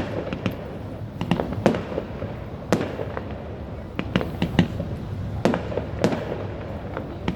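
Fireworks going off: about a dozen sharp bangs at irregular intervals, over a continuous rumble and crackle of more distant bangs.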